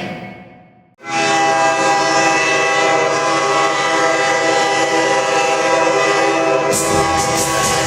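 Hockey arena goal horn, a recording of a train horn, cutting in sharply about a second in as music fades away and then sounding one long steady blast. Near the end, evenly repeated percussive hits start up under it.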